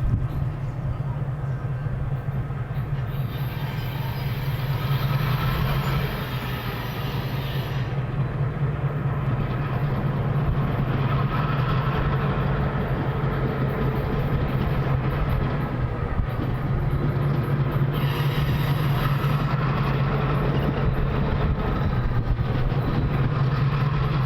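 A passenger train rolling past, a steady low rumble of wheels on the rails with a brighter hiss that swells twice.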